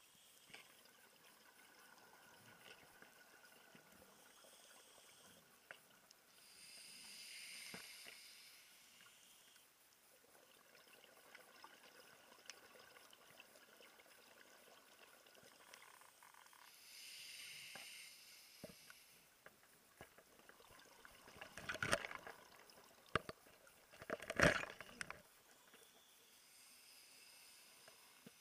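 Scuba diver breathing underwater: exhaled bubbles rush from the regulator three times, about ten seconds apart. Faint clicks run throughout, with two louder bursts of crackling clicks in the last third.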